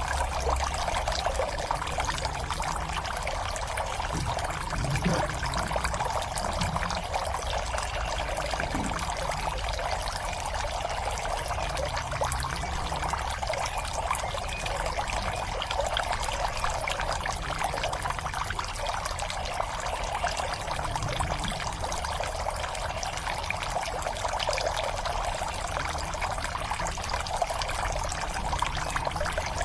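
Water pouring and trickling steadily into a fish pond, an even splashing without a break.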